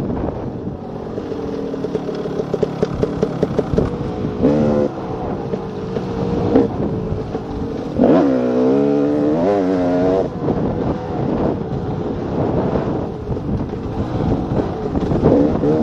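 2014 KTM 300 XC-W's single-cylinder two-stroke engine running under changing throttle, its pitch rising and falling, with the strongest wavering revs about halfway through. Wind rushes over the helmet-camera microphone throughout.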